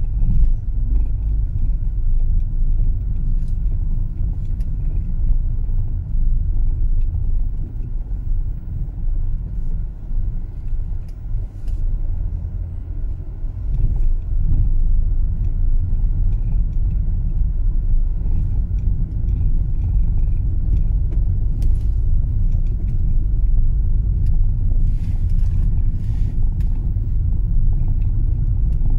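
Car driving, heard from inside the cabin: a steady low rumble of tyres and engine, with a faint steady high tone above it and a slight easing a little before halfway.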